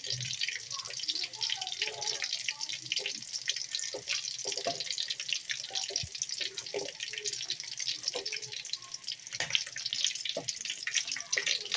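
Chicken pieces shallow-frying in hot oil in a kadai: a steady sizzle crowded with small pops and crackles.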